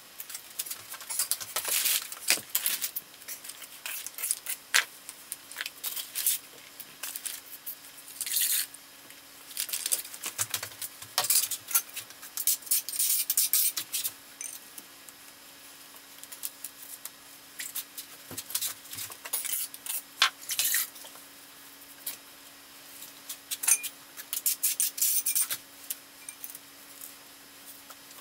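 Irregular clinks, clicks and scrapes of tile-setting work: ceramic tiles and hand tools knocking and scraping on the floor, over a faint steady hum.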